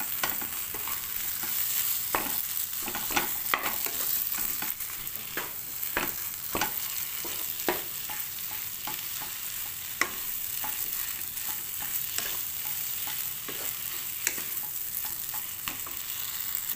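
Spatula stirring and mashing a thick chicken-and-potato samosa filling in a non-stick wok, scraping and tapping against the pan at an irregular pace over a steady frying hiss.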